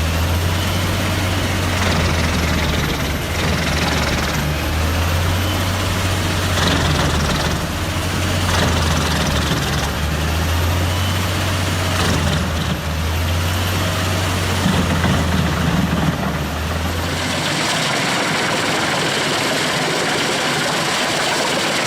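A large wood chipper's engine running steadily under load with a deep hum, noisier in irregular stretches as logs are fed through. The engine hum drops away about seventeen seconds in, leaving a steady even noise.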